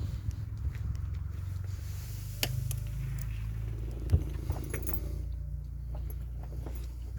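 Cane Corso snoring: a low, steady rumble, with a few light clicks.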